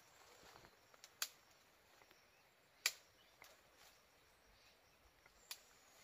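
Quiet forest background broken by three sharp snaps of twigs and brush as someone pushes through undergrowth. The loudest snap comes about halfway through.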